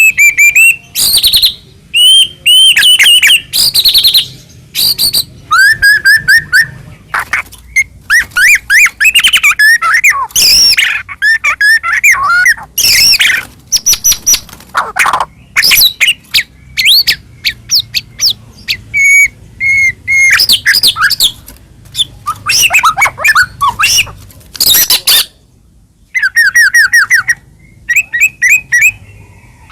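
White-rumped shama (murai batu) singing a loud, varied song: whistled notes, rapid trills and sweeping phrases in quick succession, broken by short pauses and one longer pause near the end.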